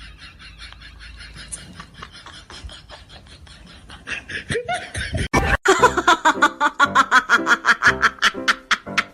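Laughter in quick, even bursts, about four to five a second. It is faint at first and much louder from about halfway through.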